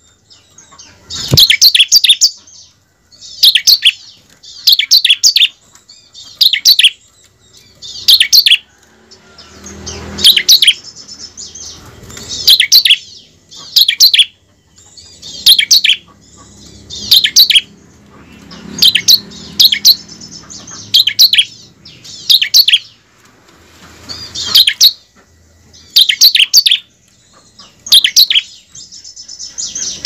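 Bar-winged prinia (ciblek) chirping in short, loud, high-pitched phrases. Each phrase is a quick run of sharp notes, repeated roughly once a second with short gaps, the sound used as a lure song to set other ciblek singing.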